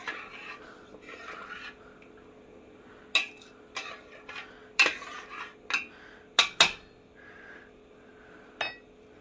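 Stainless steel cookware clinking: a metal spoon, pot and lid knocking together in a series of sharp clinks with a short ring, two in quick succession, after softer scraping at the start. A faint steady hum runs underneath.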